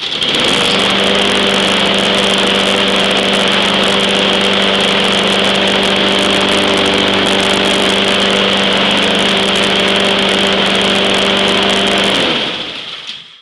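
Honda engine on a Husqvarna walk-behind push mower catching on the first pull and running steadily at speed, with a high whine over the engine note, and running really well. About twelve seconds in it is shut off and spins down.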